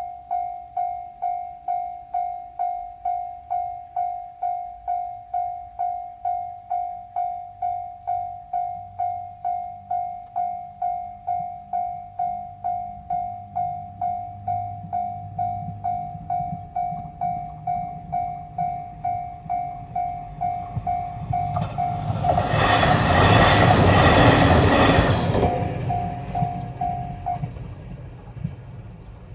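Japanese level-crossing warning bell ringing steadily at a little under two strokes a second while a diesel railcar approaches, rumbling, and passes over the crossing about 22 seconds in, loud for some three seconds. The bell stops a couple of seconds after the train has cleared.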